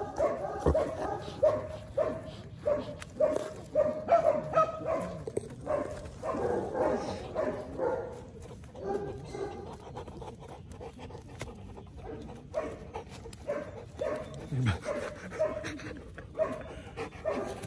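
Dog barking repeatedly in quick runs, quieter for a few seconds in the middle before starting up again.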